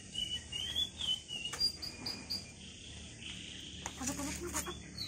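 Small birds chirping with short high whistled notes, joined partway through by a steady high insect buzz.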